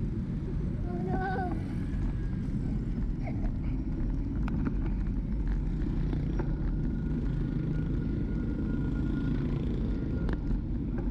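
Wind rushing over the microphone of a GoPro on a moving bicycle, with low rumble from the tyres on the road. A brief voice comes about a second in, and a faint steady whine runs through the second half.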